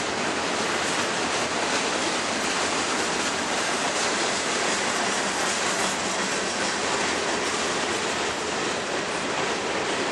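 Freight train's cars rolling past: a steady, unbroken noise of steel wheels on rail.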